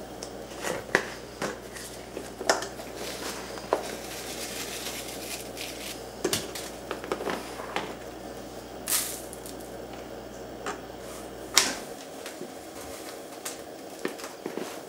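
Cardboard box rustling, scraping and tapping as a cat climbs in and rubs against a catnip toy: scattered short sharp sounds over a low steady hum that cuts off about two-thirds of the way through.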